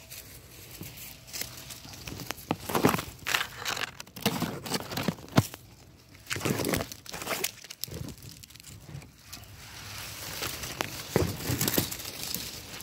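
Footsteps crunching and rustling through dry leaf litter and twigs in irregular bursts, with one sharp click about five seconds in.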